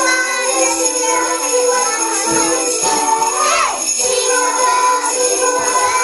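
Handheld jingle bells shaken steadily by a group of children along with recorded music whose notes step up and down. About three and a half seconds in, a falling glide sweeps down through the music.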